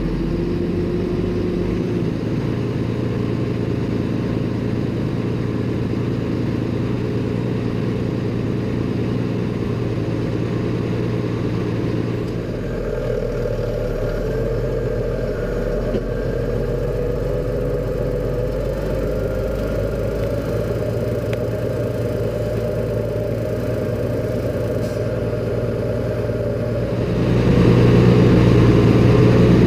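Valtra T234 tractor's six-cylinder diesel engine running steadily while pulling a plough through the field. The tone shifts about twelve seconds in, and the engine gets louder near the end.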